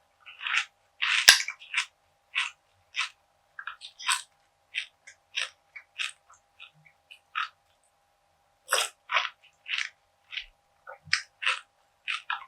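Close-miked chewing of crunchy perilla seed gangjeong, a bar of perilla seeds set in syrup, in short, sharp, irregular crunches. There is a loud bite about a second in and a brief pause a little past the middle.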